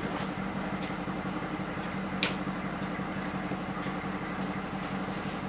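Steady low machine hum, with one sharp click about two seconds in.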